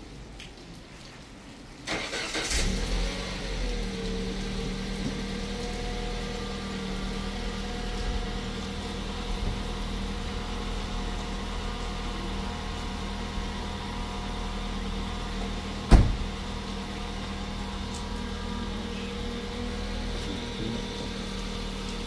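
A car engine starts about two seconds in, runs fast for a moment, then settles into a steady idle. One sharp knock comes about sixteen seconds in.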